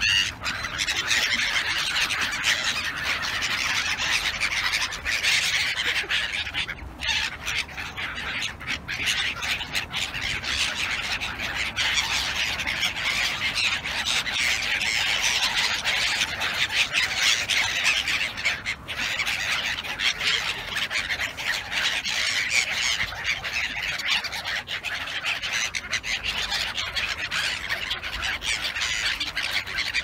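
A flock of black-headed gulls calling without pause, many harsh squawking cries overlapping, as the birds crowd in to be fed.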